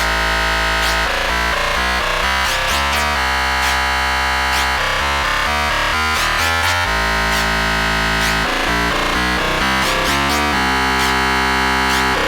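Electronic dance music played loud and steady in a DJ set: layered synthesizer chords that change every half second or so over a deep bass, with occasional swooshing sweeps on top.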